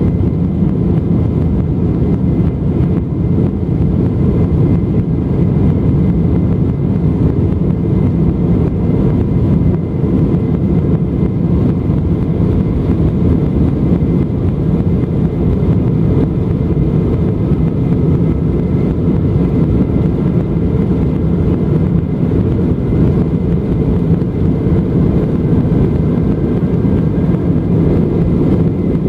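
Steady cabin roar of an Embraer E190 airliner's twin turbofan engines and airflow, heard from inside the passenger cabin, deep and even, with a faint whine above it that rises slightly in the second half.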